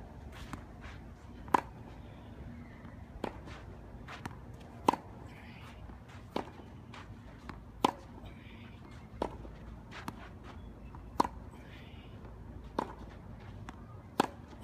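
A tennis rally: the ball struck by racquet strings about every one and a half seconds, with sharp pops that alternate louder and softer, and faint ball bounces on the court between them.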